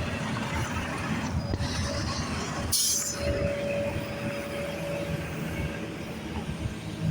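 Heavy machinery running with a low, steady rumble. About three seconds in there is a short, sharp hiss, followed by a steady whine held for several seconds.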